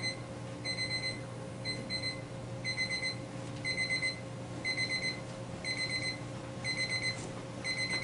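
Electronic alarm beeping: a high-pitched beep repeated in quick clusters of about four, one cluster a second, over a steady low hum.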